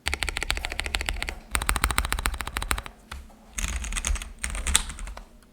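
Fast typing on a KBD67lite mechanical keyboard with Kailh Box Heavy Burnt Orange tactile switches on a polycarbonate plate. It comes as rapid runs of keystrokes in several bursts with brief pauses between them.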